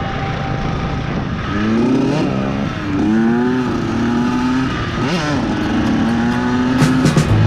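Kawasaki KX85 dirt bike's two-stroke single-cylinder engine revving under riding. Its pitch climbs, holds steady, and twice dips sharply and climbs back as the throttle is rolled off and on again.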